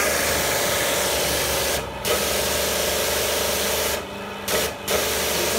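Electric high-pressure car washer (Osaka, 3.3 kW motor) spraying a hard jet of water from its trigger gun: a steady, loud hiss over the pump's hum. The spray breaks off briefly about two seconds in and twice more around four and a half seconds.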